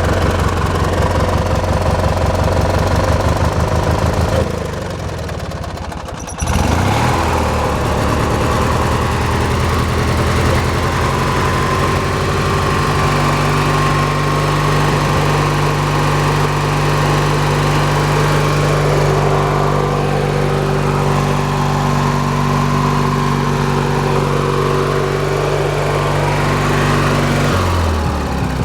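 Hechinger riding lawn tractor's small engine running with an uneven, pulsing idle. It dips for a couple of seconds about five seconds in, jumps suddenly to a steady faster run just after six seconds, and drops back to the lumpy idle near the end. It is running on old gas with the carburettor not cleaned out, its idle mixture just adjusted.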